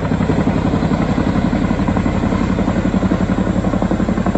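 Boeing CH-47 Chinook tandem-rotor helicopter flying overhead, its rotors making a steady, rapid beat.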